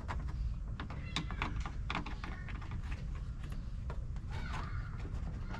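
Irregular light clicks and taps of plastic trim clips and grommets being handled and worked loose on a car body, over a low steady hum.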